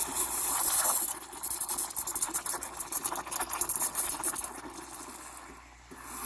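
Steam wand of a Breville espresso machine hissing and sputtering as it froths milk, loudest in the first second, then pulsing, dying down about five seconds in and surging again at the end.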